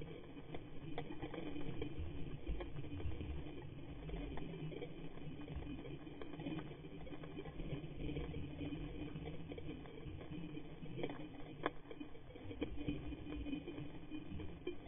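Underwater ambience at a coral reef, muffled through a camera's waterproof housing: a steady low rumble with scattered sharp clicks, a few of them plainer about a second in and again past the ten-second mark.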